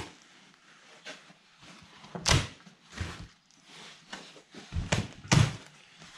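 Several dull knocks and thuds as a carpeted plywood boat-floor panel is handled and knocks against the wooden board and trestles, the loudest about two seconds in and near the end.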